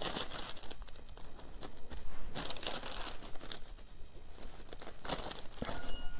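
Sheets of carbon paper and thin butter (tracing) paper rustling and crinkling as they are handled and smoothed flat, in three main bursts.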